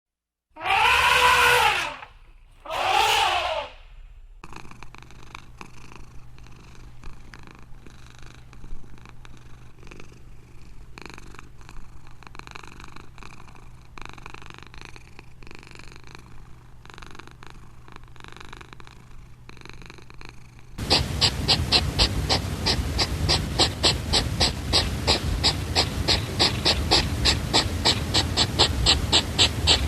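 A domestic cat meows twice, two rising-then-falling calls, then purrs softly. About twenty seconds in, a louder rapid rhythmic snuffling starts, about three huffs a second, typical of a hedgehog.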